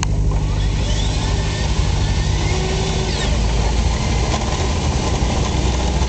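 A car driving slowly, its engine and tyres making a loud, steady low rumble with road noise, heard from the car's open rear while it tows a small electric toy jeep on a rope.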